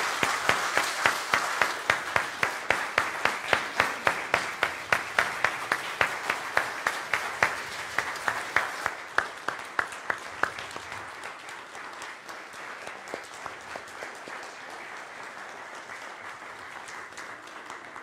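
Congregation applauding, full and loud at first, then dying down after about eight to ten seconds to faint scattered clapping.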